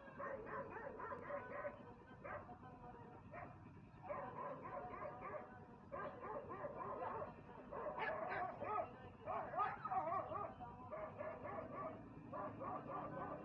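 Faint, continuous run of short, wavering animal cries, many in quick succession, loudest about two thirds of the way through.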